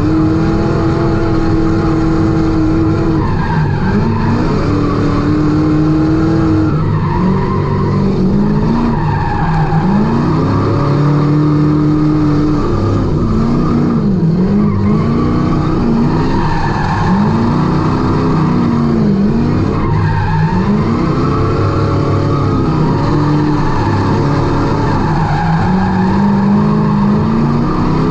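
Fox-body Mustang drifting: the engine revs rise and fall again and again as the throttle is worked through the slides, over the steady noise of the rear tyres skidding on the asphalt.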